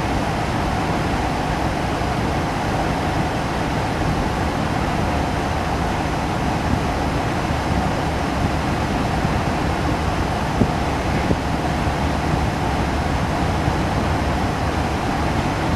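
Slow-moving grain train of covered hopper cars rolling along the track, a steady rumble with a constant hum, heard from inside a car. One small knock about ten and a half seconds in.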